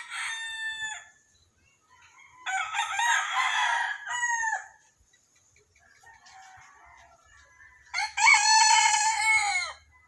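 White bantam rooster crowing: the end of one crow at the start, a full crow about two and a half seconds in, and the loudest crow near the end, each call falling off in pitch as it finishes. A much fainter call comes in between.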